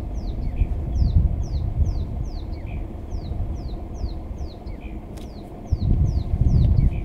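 A bird calling a steady series of short, high notes, each falling in pitch, about three a second, over a low vehicle rumble that grows louder near the end.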